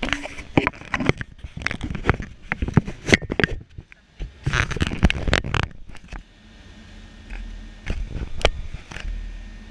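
Handling noise from a hand-held camera being moved and brushed against surfaces: a run of irregular clicks, knocks and scrapes for about six seconds. After that comes a quieter steady hum with a couple of low thumps.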